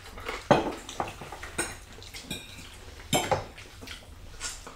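Metal serving spoon and cutlery clinking and scraping against glass serving dishes and plates, a string of sharp clinks, the loudest about half a second in and again about three seconds in.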